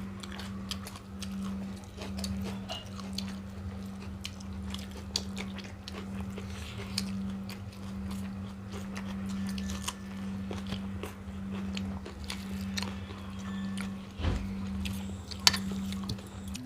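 Close-up chewing and mouth sounds of people eating rice and egg curry by hand, with many small scattered clicks and a sharper click near the end, over a steady low hum.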